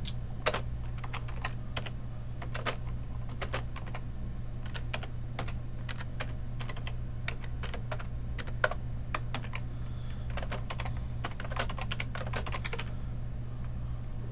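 Typing on a computer keyboard: irregular runs of key clicks, some in quick clusters with short pauses between, over a steady low hum.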